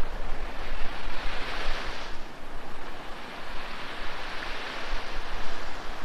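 Small waves washing onto a sandy shore, swelling about a second in, then dropping off suddenly, and swelling again around four seconds in, with a low rumble of wind on the microphone underneath.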